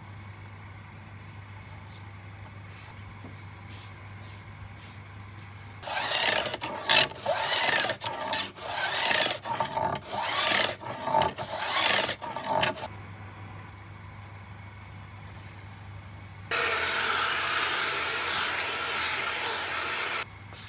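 Hand filing of stainless steel frets on an ebony guitar fretboard: a run of irregular strokes for about seven seconds, starting about six seconds in. Near the end a steady hiss holds for about four seconds, then cuts off suddenly, over a low steady hum.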